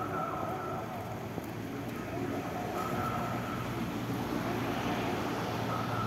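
Spoken announcement broadcast from an eRotor electronic warning siren's horn loudspeakers, heard from a distance as short phrases with long echoes across the city, over steady traffic hum.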